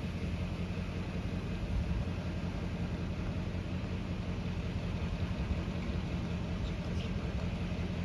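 Steady low engine rumble with a constant hum, unchanging in level and pitch.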